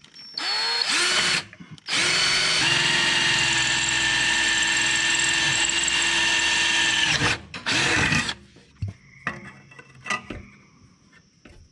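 Cordless drill boring into a rusted steel fuel filter bracket: a short spin-up, then a steady run of about five seconds, then one more brief burst. A few light clicks follow near the end.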